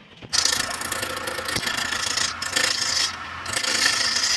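Wood being worked on a running wood lathe: a steady, rough scraping starts about a third of a second in and dips briefly twice, over the lathe's low hum.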